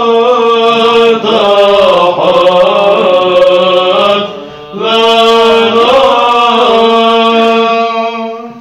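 Male choir of Orthodox monks singing Byzantine chant in Arabic: a melody moving over a steady held low drone note (the ison). The voices pause briefly for breath about halfway through.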